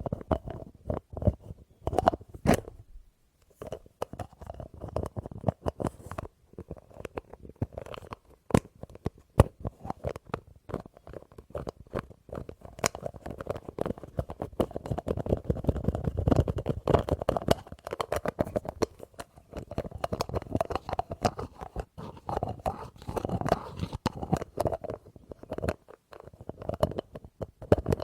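Rapid, dense tapping on a small object held close to the microphone, with a short pause about three seconds in.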